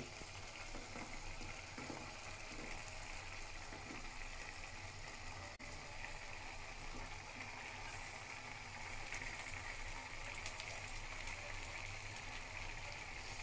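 Pot of meat and spice masala sizzling steadily on the stove.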